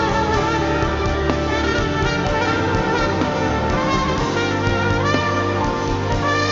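Trumpet playing sustained melodic notes over a live worship band, with a few drum hits beneath.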